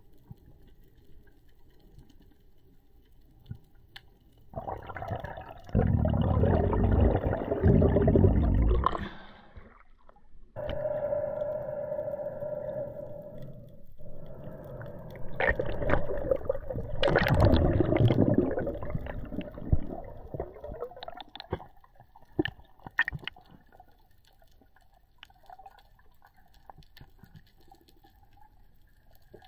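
Freediver's mask-mounted camera at and just below the surface between dives: two loud stretches of rushing water noise, with a steady hum between them, then quieter underwater sound with scattered clicks as he heads back down.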